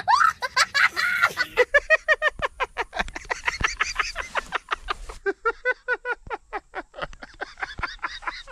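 Hearty laughter: a man laughing in quick, rhythmic bursts, about four to five a second, tailing off near the end.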